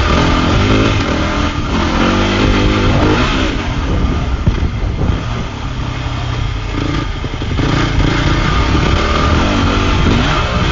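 Dirt bike engine being ridden hard, revving up and easing off several times so its pitch rises and falls.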